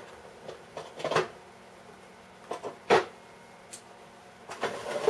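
Hard objects being handled on a workbench: a few scattered knocks and clatters, the loudest about three seconds in, with several more near the end.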